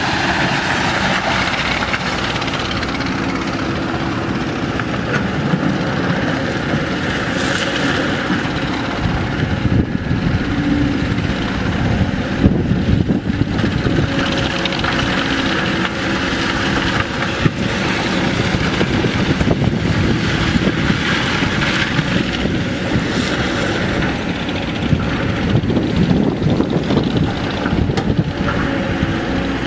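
Diesel engines of Kobelco excavators running steadily under load as they dig and swing, with scattered short knocks through it.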